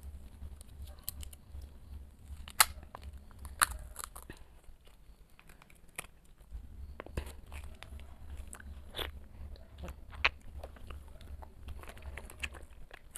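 Small plastic jelly cups being peeled open and handled, making scattered crinkles and a few sharp clicks, with soft mouth sounds of jelly being eaten. A low hum runs underneath.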